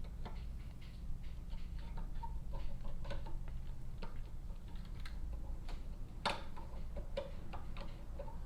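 Flathead screwdriver turning a slotted button head bolt out of a steel nut: small irregular metallic clicks and ticks of the blade in the slot and the threads, with one sharper click about six seconds in.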